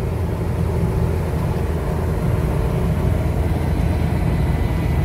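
1983 Daihatsu Taft's engine running steadily at highway cruise, held around 2200–2500 rpm, with road noise, heard from inside the cabin.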